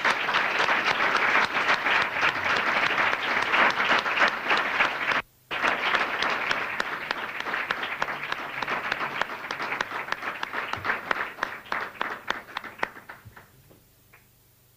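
Audience applauding: a dense round of clapping that cuts out for a split second about five seconds in, then resumes and thins to scattered claps before dying away near the end.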